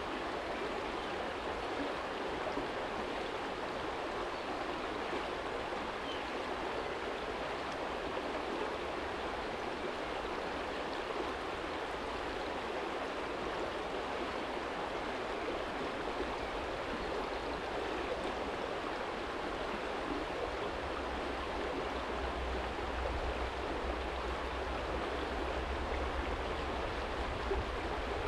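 Small stream flowing steadily over a stony bed, an even rushing and babbling of water. A low rumble underneath grows louder in the last third.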